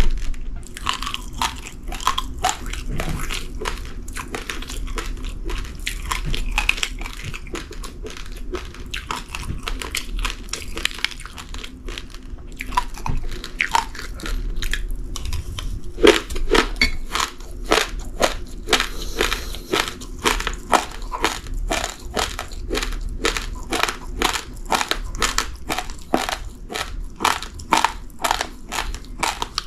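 Raw, uncooked rice grains crunched between the teeth in close-up, a continuous run of sharp crackling crunches that grows denser and louder about halfway through.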